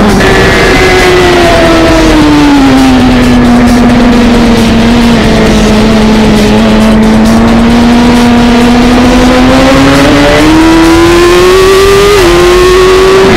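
Suzuki GSX-R1000 race bike's inline-four engine, heard loud from the onboard camera over a constant rush of noise. The engine note falls over a couple of seconds as the bike slows, holds low and steady, then climbs as it accelerates again, with a short step down in pitch near the end.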